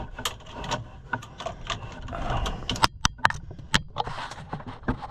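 Irregular light clicks, taps and rattles of a throttle cable and metal parts being handled and worked through a tractor's sheet-metal panel.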